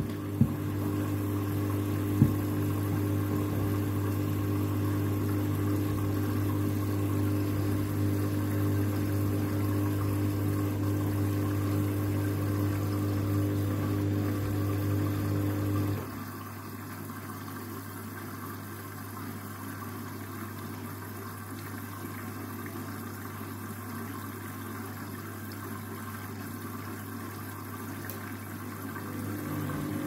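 Candy front-loading washing machine in its cool-down phase: a steady electrical hum with two clicks near the start, which cuts off suddenly about halfway, leaving the quieter sloshing of soapy water and washing in the turning drum.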